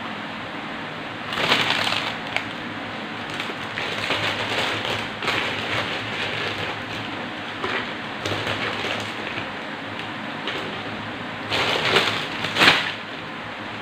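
A large plastic bag of crisp crackers crinkling and rustling in irregular bursts as a hand rummages in it and pulls crackers out. The loudest crinkles come near the end, as the bag is lifted.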